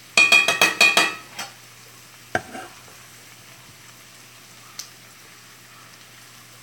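Skillet of potato, onion and jalapeno breakfast hash sizzling steadily. A fast run of loud metallic clicks and clatter fills the first second, and a single sharp knock comes about two and a half seconds in.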